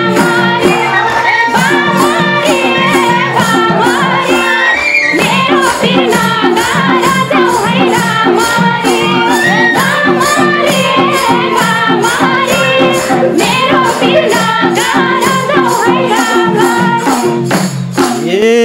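Instrumental interlude of live Nepali dohori folk music: madal drums keep a steady, quick beat with a jingling percussion on each stroke and a lively melody line on top. The music stops near the end.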